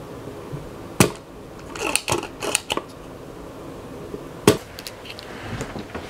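Sharp tool clicks while solder is cleared from a circuit board's capacitor holes: a loud snap about a second in and another about four and a half seconds in, with a short run of smaller clicks and knocks between them.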